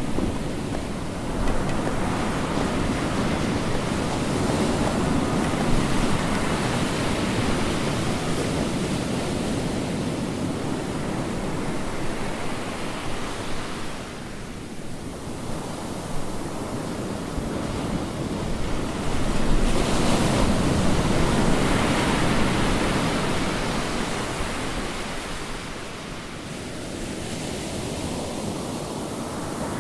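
Ocean surf: a steady rush of breaking waves that swells and eases every several seconds.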